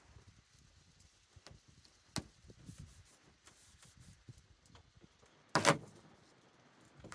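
Handling sounds from hands-on work: scattered light clicks and knocks, with one short, louder rasp about five and a half seconds in.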